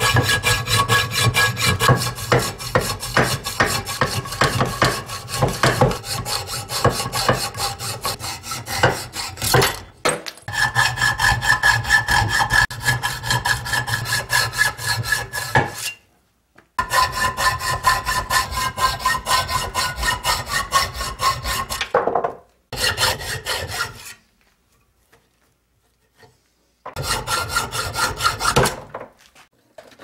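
Hand hacksaw cutting through an aluminium plate held in a bench vise: rapid rasping strokes with a steady ringing tone over them. The sawing stops and restarts several times and is mostly quiet in the second half.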